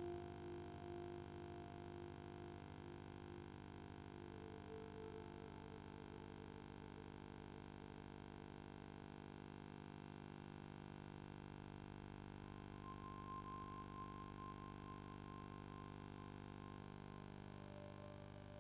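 Faint background music: soft, held synthesizer notes that change pitch a few times, over a steady low hum.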